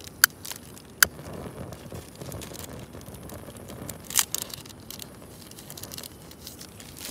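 Handheld stick firework being lit: a couple of sharp clicks early on, then the firework catches about four seconds in and hisses as it sprays sparks.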